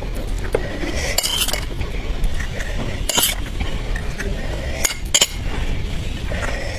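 Eating sounds at close range: cutlery clinking and scraping against dishes, with a handful of sharp clicks and short noisy bursts spread through.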